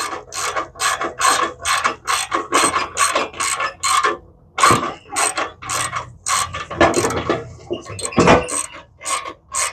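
Hand socket ratchet clicking in quick, even back-and-forth strokes, about three a second, with brief pauses about midway and near the end.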